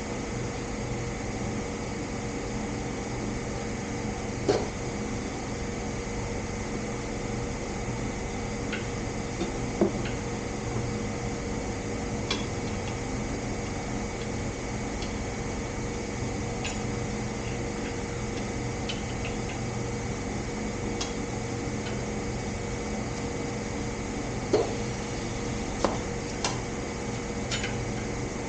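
A steady mechanical hum with a few fixed tones, with a handful of short, light clicks and knocks scattered through it.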